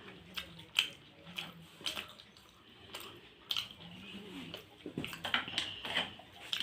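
Wet, close-up eating sounds: irregular smacks, clicks and squelches of chewing soft, sticky rice-flour pithe (sweet dumplings in milk and jaggery).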